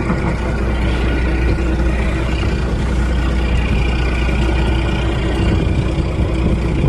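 Fishing boat's engine running steadily: a constant low drone under an even hiss.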